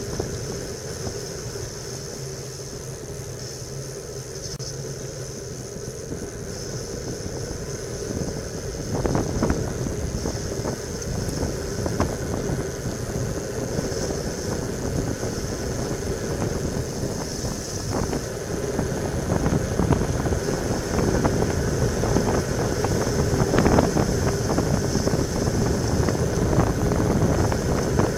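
Wind rushing over a bike-mounted camera's microphone, with tyre noise on asphalt, during a fast road-bike descent. It gets louder about nine seconds in and again near the end.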